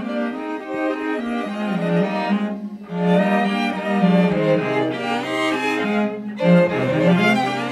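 String quartet of two violins, viola and cello playing bowed notes, with short breaks between phrases and a low sliding note rising near the end.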